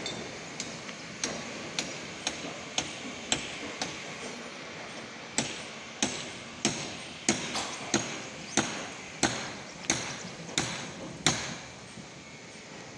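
Hammering on a building site: a steady run of sharp, ringing strikes, about one every half to three-quarters of a second, that stops near the end.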